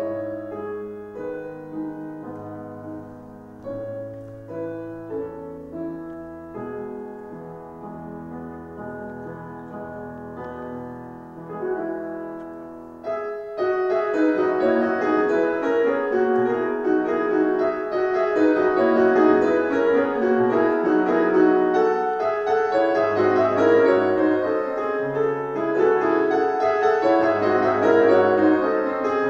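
Schimmel grand piano played solo: a quieter passage of slower notes over held bass notes, then about halfway through it turns suddenly loud with fast, dense runs of notes.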